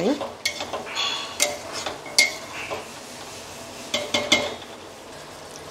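Metal ladle stirring chicken curry in a stainless steel pot, scraping and clinking against the pot's sides. The clinks come in several bursts: about half a second in, around one and two seconds, and a cluster near four seconds.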